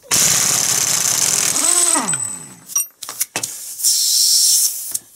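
Pneumatic impact wrench (windy gun) hammering on the staked nut of an R380 gearbox lay shaft. A long burst of about two and a half seconds ends with the air motor winding down in a falling whine. A shorter burst of about a second follows near the end, and the nut comes undone.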